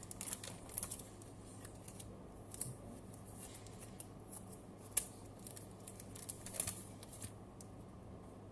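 Intermittent light clicks and crinkling rustles of trading-card packs and cards being handled and opened, with one sharper click about five seconds in.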